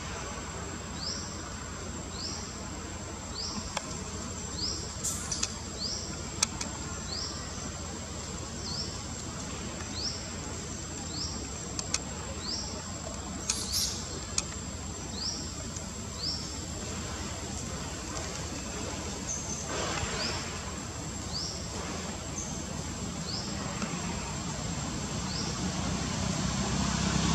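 Insects droning in a steady high tone, with a short rising chirp repeating about once a second. Near the end a vehicle's sound grows louder as it approaches.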